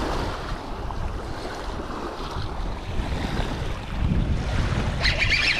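Small waves lapping on a rocky shoreline, with wind rumbling on the microphone. Near the end a brief high, wavering sound comes in.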